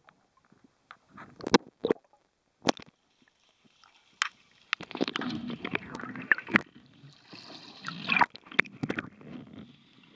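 Water gurgling and sloshing around an underwater camera, with sharp clicks and knocks: a few in the first half, then many over a busy bubbling wash from about halfway through.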